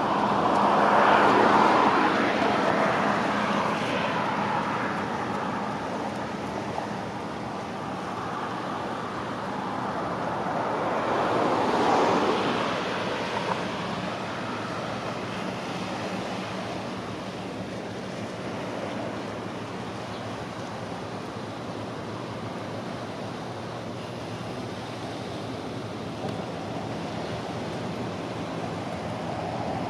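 Outdoor ambience: a steady low hum under a rushing noise that swells about a second in and again around twelve seconds, then settles.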